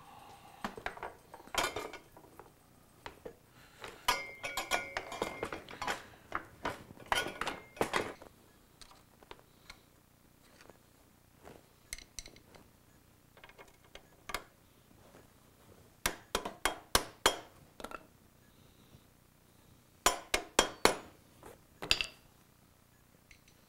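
Metal clinks and taps from hand tools and parts, in scattered clusters with quiet pauses between, as a dirt bike's rear shock absorber is fitted to its bottom mount with its bushings.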